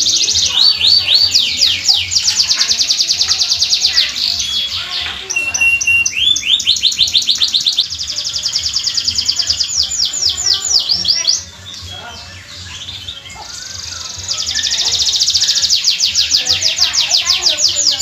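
Domestic canary singing a long, fast song: rapid trills of repeated falling notes, switching from one trill to the next every second or two, with a softer stretch about two thirds of the way through before the loud trills resume.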